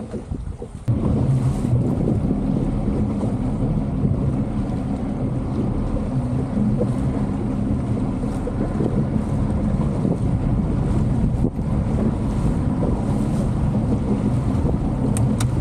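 Boat motor running steadily, with wind buffeting the microphone; the drone comes in abruptly about a second in.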